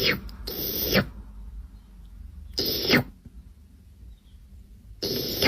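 An animal calling three times, each call short with a falling pitch.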